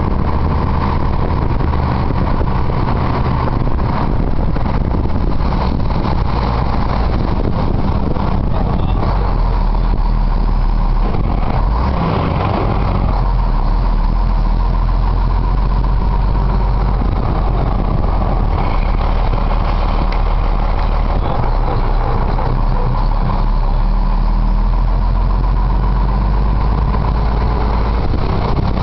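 A fire engine's engine running steadily under way, with road and wind noise, heard from inside the cab.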